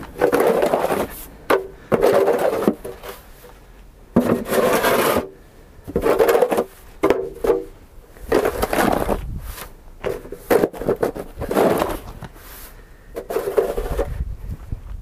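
A snow shovel scraping and pushing snow in repeated strokes, a stroke every second or two.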